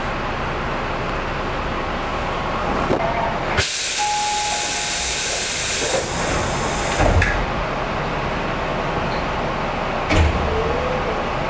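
Electric train's compressed-air system venting: a sudden loud hiss lasting about two and a half seconds, over the steady running noise of a train at a station. A couple of dull thumps follow.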